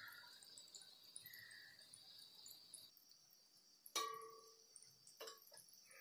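Faint steady sizzle of gulab jamun balls deep-frying in oil and ghee. About four seconds in, a wire spider skimmer clinks sharply against the steel pan with a short ring, and it clinks more softly a second later.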